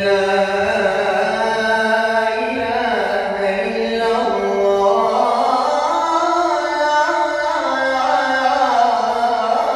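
A young man's solo voice reciting the Islamic call to prayer (ezan) into a microphone, an Uşşak-makam ezan sung in long held notes with slow ornamented turns, the pitch stepping lower toward the end.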